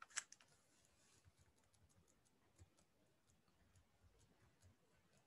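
Faint computer mouse clicks: a quick cluster of sharp clicks at the start, then scattered light ticks over near silence.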